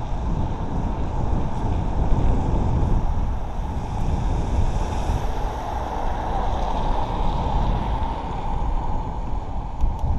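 Wind buffeting and rushing over the microphone of a camera riding on a moving bicycle, a steady noise heaviest in the low rumble with uneven gusts.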